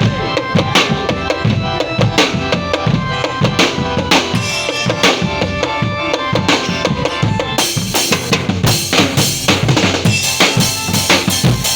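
Loud percussion-led music: drums beating a dense, fast rhythm over steady ringing pitched tones.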